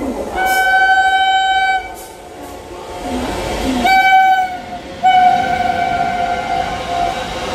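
Freight train locomotive horn sounding three blasts: a blast of about a second and a half, a short one, then a long one from about five seconds in. Underneath, the low rumble of the train grows louder.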